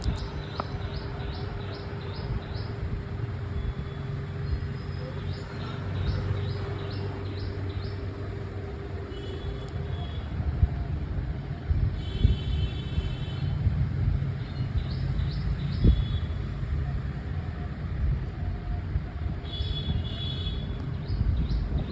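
Background ambience: a steady low rumble like passing traffic, with several runs of short, quickly repeated high bird chirps.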